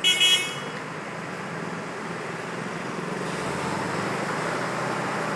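Steady road traffic noise, opening with a brief, loud, high-pitched blast that lasts under half a second.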